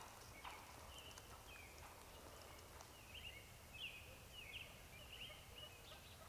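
Wild turkeys calling faintly: a scatter of short, soft high notes, bunched a few a second in places.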